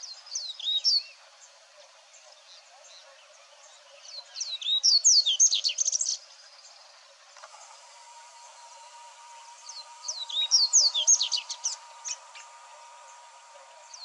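A songbird singing three bursts of quick, high twittering phrases, near the start, about four seconds in and about ten seconds in, each lasting one to two seconds. A faint steady tone sits underneath from about halfway through.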